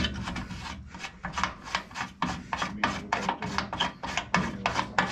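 Threaded filler cap being twisted on the welded aluminium filler neck of a water-methanol injection tank: a quick, even run of rasping scrapes, about five a second.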